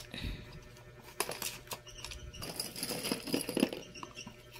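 Steel nail-gun pins with plastic collars being tipped out of their cardboard box and handled on a cardboard sheet: scattered small metal clinks and clicks, irregular, several a second at times.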